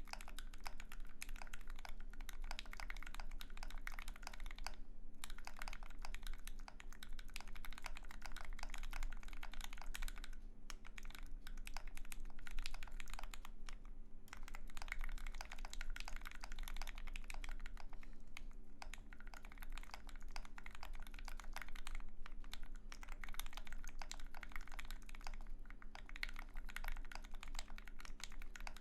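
Steady typing on an aluminium-plate Alice-layout mechanical keyboard (Austere) with filmed, lubed Alpaca linear switches and lubed screw-in stabilizers: a fast run of keystrokes, broken by a few short pauses.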